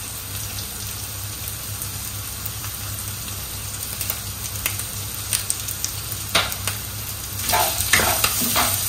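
Diced chicken sizzling in a little coconut oil in a nonstick frying pan, over a steady low hum. From about six seconds in, a spatula stirs and scrapes the pieces around the pan.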